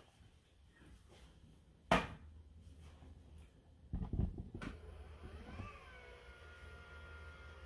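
A sharp knock about two seconds in and a cluster of dull thumps around four seconds, then a faint motor whine that rises in pitch and settles into a steady hum: the Narwal T10 robot mop's drive-wheel motors and spinning mop pads running, with no vacuum motor.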